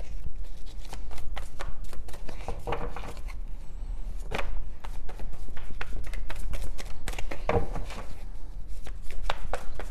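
A tarot deck being shuffled by hand: a rapid run of card clicks and slaps, with a few louder slaps partway through.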